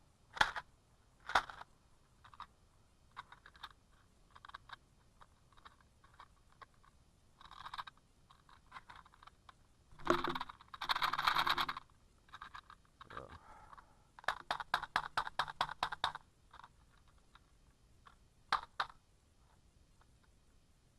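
Metallic clicks and rattles from an AK-pattern rifle magazine being handled and worked, with a rustling stretch about ten seconds in and a quick run of about a dozen clicks a little later. The magazine is being checked for the dent that is causing the misfeeds.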